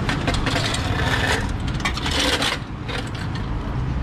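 A metal wheel clamp being fitted onto a parked car's front wheel: clanking and scraping of metal, loudest in two stretches around the middle, over a steady low street rumble.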